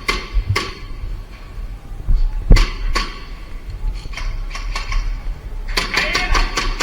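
Airsoft guns firing: a few separate sharp shots, then a rapid burst of fire near the end.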